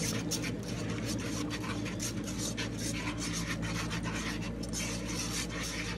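Metal whisk scraping and stirring thickening gravy in a cast-iron Dutch oven: a continuous quick rasping of wire against the pot, over a low steady hum.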